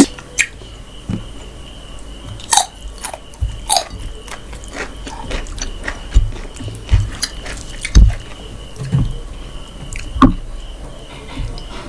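Close-miked chewing and biting of spicy achari mutton and rice: irregular wet mouth clicks and smacks with soft low thumps.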